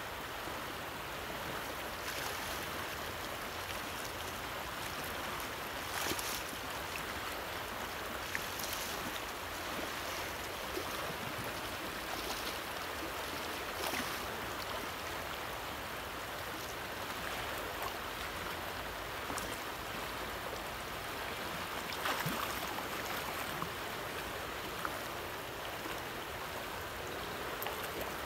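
Fast river current rushing steadily, with a few faint knocks and rustles now and then.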